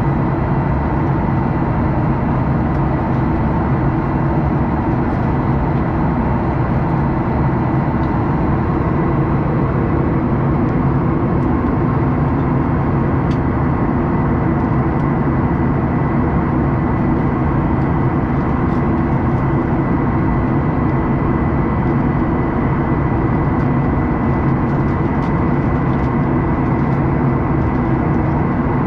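Jet airliner cabin noise in flight: a steady drone of engines and rushing air, with several low hums and a thin, steady high tone.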